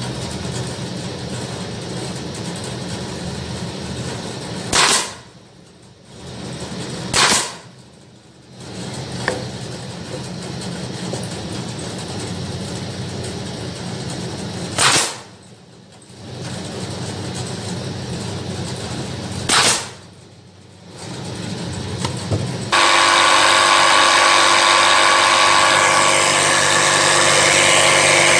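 Pneumatic F32 brad nailer firing into pallet wood: four sharp single shots, spread over about fifteen seconds, over a steady low hum. Near the end a much louder steady noise cuts in abruptly.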